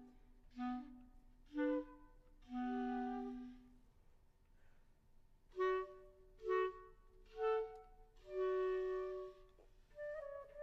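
Clarinet and another woodwind playing a classical duet in short phrases broken by rests: two brief notes and a longer held one, a pause, then three brief notes and another held one, with playing picking up again near the end.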